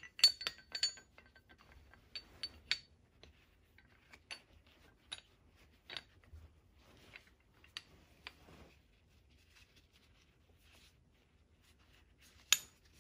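Metal winch hook hardware clinking and clicking in gloved hands as it is fitted to the end of a synthetic winch rope. A quick cluster of sharp clinks in the first second, a few more around two seconds in, scattered single clicks after, and one loud clink near the end.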